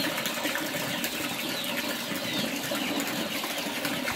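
A flock of young country (Nati) chickens chirping and peeping all together: a steady, dense chatter of many short falling calls.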